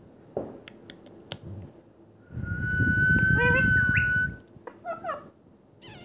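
Indian ringneck parakeets chirping in short, bending notes, with a steady whistle held for about two seconds over a low rumble near the middle. A few sharp clicks come first.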